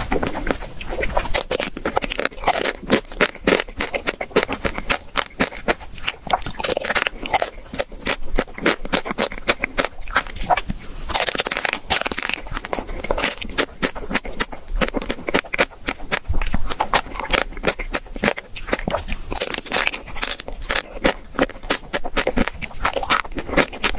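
Close-miked eating: a chocolate-coated ice cream bar's thin pink shell cracks and crunches under repeated bites and chewing, in a dense run of irregular crackles.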